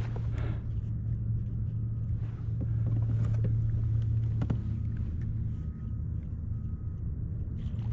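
A steady low hum with a weaker overtone above it, with a few faint clicks.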